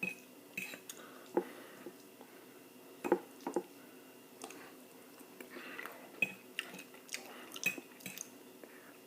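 Eating sounds: cutlery clinking and scraping on a plate, with wet mouth sounds, in scattered irregular clicks about once or twice a second.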